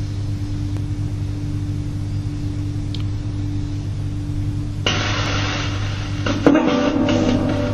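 A steady low hum with hiss; about five seconds in, a brighter rushing noise cuts in suddenly, and from about six seconds there are light clinks and knocks.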